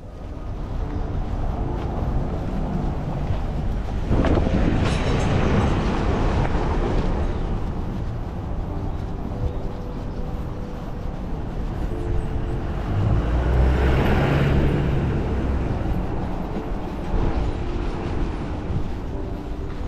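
Outdoor street noise: a steady low rumble that swells louder twice, about four seconds in and again about thirteen seconds in.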